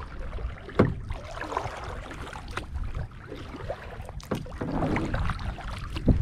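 A kayak being paddled on a lake: irregular paddle splashes and a few sharp knocks over a steady low rumble.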